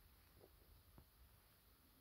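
Near silence in the pause between two snores: a faint low hum, with two soft ticks about half a second and one second in.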